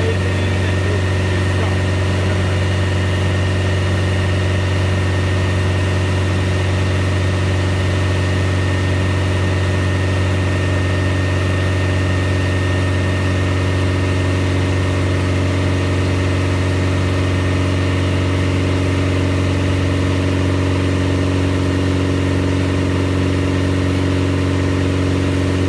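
Car engine running steadily at about 2,760 rpm under load on a chassis dyno, held at constant speed while its MegaSquirt-controlled ignition timing is adjusted. A steady low drone, with a higher tone that grows stronger about two-thirds of the way through.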